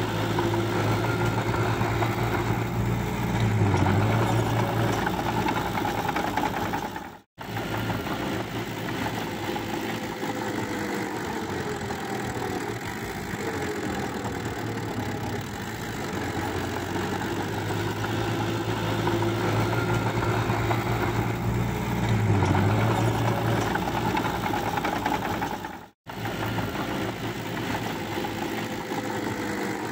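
Small crawler bulldozer's diesel engine running steadily while pushing mud, a continuous low drone with the pitch sagging a little now and then. The sound cuts out for an instant twice, about seven seconds in and a few seconds before the end.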